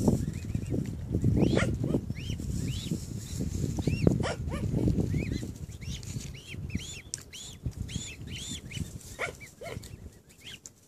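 Newly hatched mute swan cygnets peeping: many short, high chirps, each rising and falling in pitch, repeated throughout and thinning out near the end. A low rumbling noise runs underneath, mostly in the first half.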